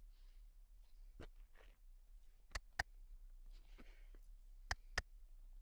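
Quiet, with a few faint sharp clicks, two of them coming in quick pairs.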